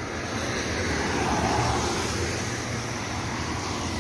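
Road traffic on wet asphalt: a steady hiss of tyres and engine hum that swells about a second in and eases off after the middle, as a car passes.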